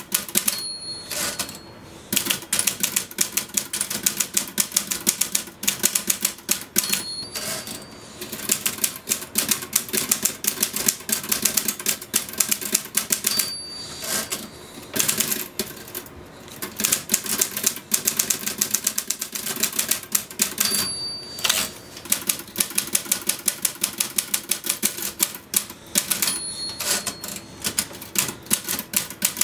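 Typewriter typed fast and without let-up, keys clacking in quick runs. The margin bell dings five times, each ding followed by a short break in the typing as the carriage is returned.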